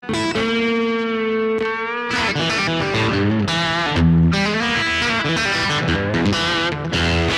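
Electric guitar with a neck humbucker and 4-way pickup switching, played through an amp: a chord rings out for about two seconds, then a phrase of single notes and short chords follows.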